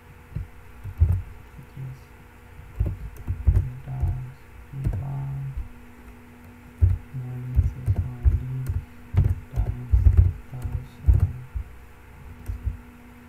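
Keystrokes on a computer keyboard in irregular runs with short pauses, each key landing as a dull thump.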